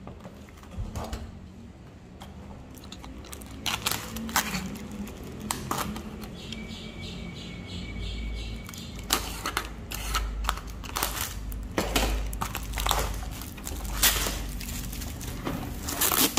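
Clear plastic shrink-wrap crinkling and crackling as a wrapped pegboard package is handled and tipped. The crackles come in irregular bursts that start about a few seconds in and get busier, with low handling rumble in the middle.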